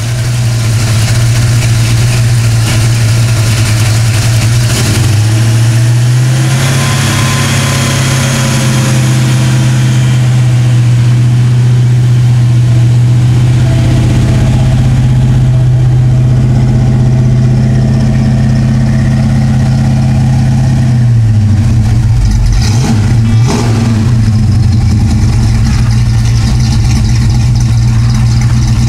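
Plymouth GTX's fuel-injected 440 V8 running steadily at idle. Its speed steps up about six seconds in, holds, and settles back down about twenty-one seconds in.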